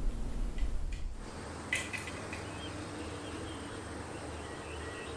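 Quiet outdoor ambience with a few faint, short bird chirps over a steady low hum, and a single soft click about a second and a half in.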